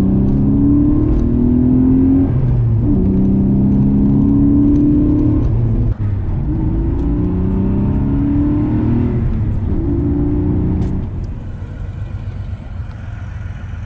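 Porsche 964's air-cooled flat-six, heard from inside the cabin, pulling hard through the gears: the engine note climbs in pitch and drops back at each upshift, about four pulls in all. A little before the end it settles to a quieter, lower, steady engine sound.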